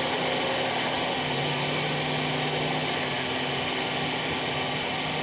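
Bulldozer's diesel engine running steadily, its pitch stepping up slightly about a second in.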